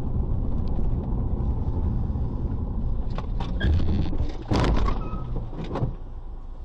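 Car interior rumble from engine and road, then from about three seconds in a string of sharp knocks and a loud crash a second or so later as an oncoming car collides with the dashcam car front to front.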